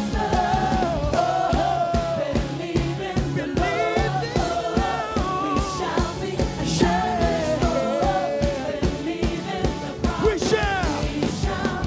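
Live gospel worship band playing with a singer's voice over a steady drum beat, the voice sliding through long runs.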